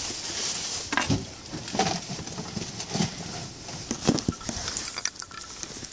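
Clothing rubbing over a phone's microphone inside a pocket, with irregular dull knocks about once a second as the wearer moves.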